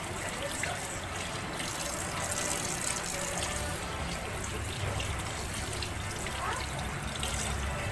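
Water running steadily over raw chicken pieces as they are washed by hand.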